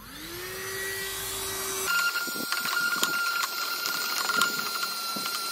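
USB mini vacuum cleaner switching on, its small motor spinning up with a quickly rising whine, then running steadily. About two seconds in its note changes to a higher whine as the nozzle goes down into the sewing machine's bobbin area, with light clicks and scrapes of the plastic nozzle against the metal parts.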